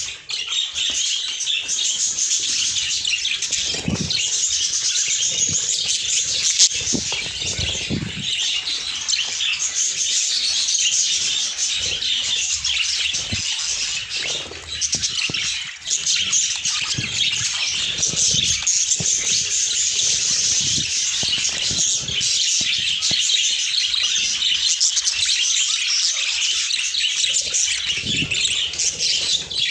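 A flock of budgerigars chattering and warbling without a break in a dense, busy mass of high chirps, with a few soft low thumps now and then.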